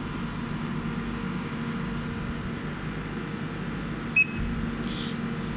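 Steady hum from a running CO2 laser cutter with its water chiller and exhaust fan. About four seconds in, one short high beep sounds as an arrow key on the machine's Ruida control panel is pressed.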